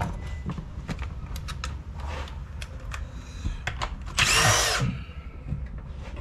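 A cordless drill-driver spins for under a second about four seconds in, undoing a fastener, among light clicks and knocks of tools and metal parts being handled.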